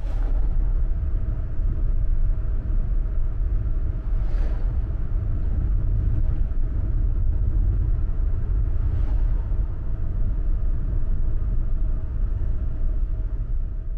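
Inside the cabin of a moving Suzuki Lapin kei car: steady low road and engine rumble with a faint steady hum above it.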